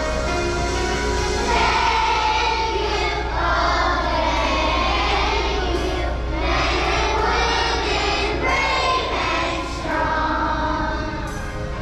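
A children's choir singing together with musical accompaniment. A steady low hum under the singing stops shortly before the end.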